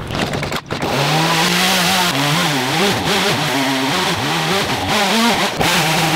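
Gas two-stroke chainsaw running at high revs from about a second in, its pitch dipping and rising repeatedly as it cuts through a large log.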